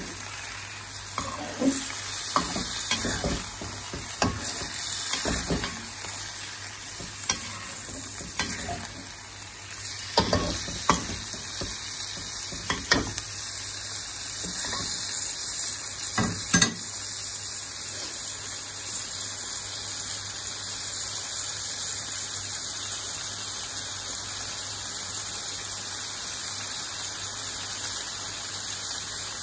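Beef liver, onion and ginger sizzling in hot oil in a wok. A metal spatula scrapes and knocks against the wok as it is stirred through the first half or so, and after that the steady sizzle goes on alone.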